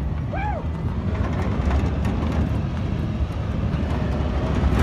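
A vehicle driving over sand: a steady low rumble of engine and tyres.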